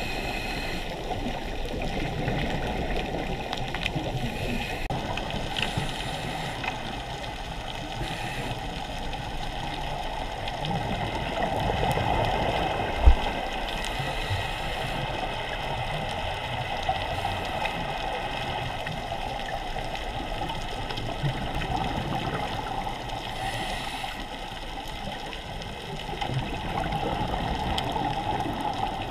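Underwater sound picked up by a camera in a dive housing: a steady muffled wash of water with bubbling and gurgling from scuba divers' breathing. There is one sharp knock about thirteen seconds in.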